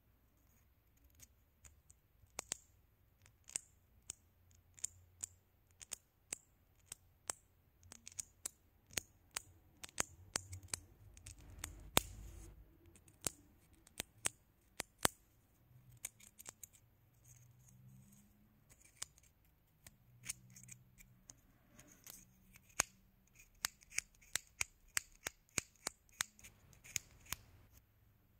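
Long natural fingernails clicking and tapping against one another: sharp separate clicks, irregular at one to two a second, coming quicker in a run near the end.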